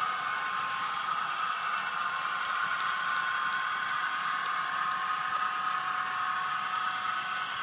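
Murphy Models 201 class model diesel locomotive with a DCC sound chip running with its train: a steady, thin simulated diesel engine sound from the model's small speaker, mixed with the whir of wheels rolling on the model track.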